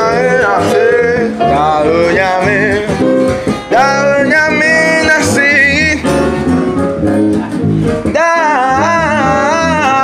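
Live acoustic jam: a voice singing over a strummed acoustic guitar and an electric bass, with a brief break about eight seconds in before the music picks up again.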